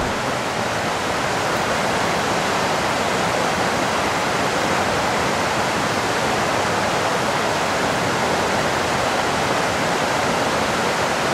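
Steady rushing water of a stream, an even unbroken hiss with no distinct knocks or calls.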